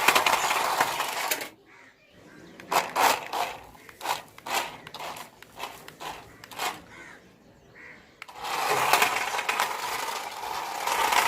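Small electric motors and gears of toy remote-control cars whirring in spurts as they are driven. There is a run at the start, a string of short bursts in the middle, and a longer steady run over the last few seconds.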